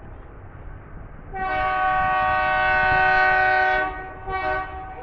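Air horn of an approaching Indian Railways WDG-3A diesel locomotive: one long blast of about two and a half seconds, then a short second blast, over the locomotive's low engine rumble.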